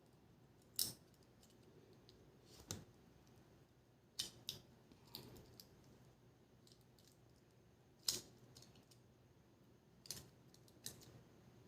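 Scattered small clicks and taps, about eight, of small tools and plastic and metal parts being handled during the teardown of a GoPro Hero 5 Black camera, with quiet between them.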